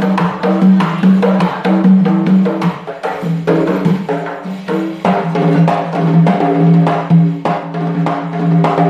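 Two doira frame drums played together in a fast, driving rhythm of sharp slaps and rim strokes, over a low melodic line.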